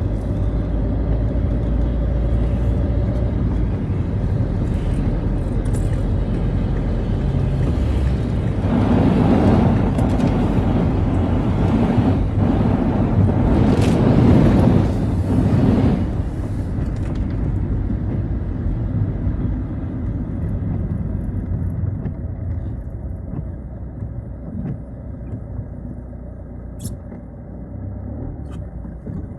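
Citroën Xsara driving on a wet road: steady engine rumble with tyre and road noise. The noise swells louder for several seconds from about nine seconds in, then eases and grows quieter toward the end.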